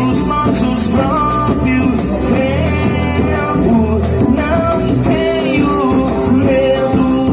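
Music: a song with a sung melody over guitar, bass and drums.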